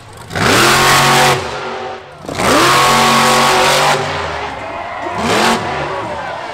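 Monster truck engine revving hard in two long surges, the pitch climbing at the start of each. It settles to a lower, steadier run for the last couple of seconds while the truck holds a wheelie on its rear tyres.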